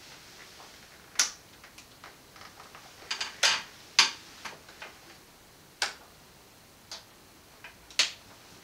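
Scattered sharp clicks and light knocks, about eight over the stretch, from handling an accordion: its bellows-strap snaps being unfastened and the instrument shifted into its shoulder straps.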